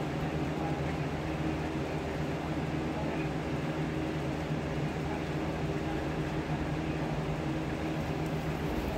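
Electric fan running steadily in the room: a constant whir with a low hum.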